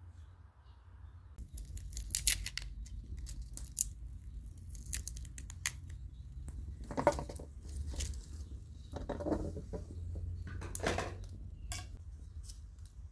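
Close-up crackling and scraping of a small knife peeling the papery skins off garlic cloves: a run of short, crisp snips and rustles that starts about a second and a half in.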